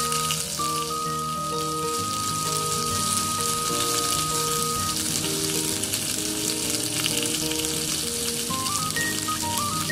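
Meat sizzling and crackling on a grill over a campfire, a steady hiss with scattered spits, under background music with a stepped melody.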